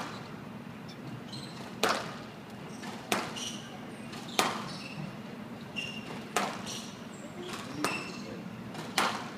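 Squash rally: the ball cracking off rackets and the walls of a glass court, six sharp hits about a second and a half apart. Between the shots come short high squeaks of court shoes on the floor.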